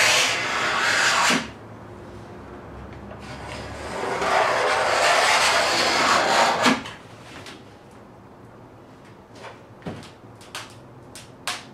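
Utility knife scoring a sheet of Formica laminate along a straightedge: a scratching stroke that stops about a second and a half in, then a second long stroke from about three to nearly seven seconds in, each ending with a small click. Near the end come a few light clicks as the laminate sheet is lifted and flexed.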